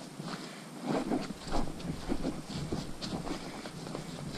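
Footsteps crunching on a wet gravel-and-dirt road at a walking pace.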